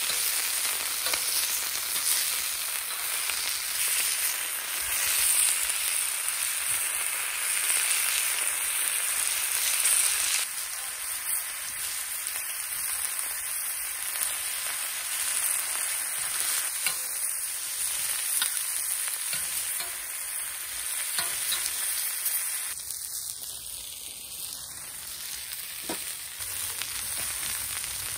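Meat and vegetables sizzling steadily on a stainless steel griddle over a wood-burning camp stove, with metal tongs turning the meat.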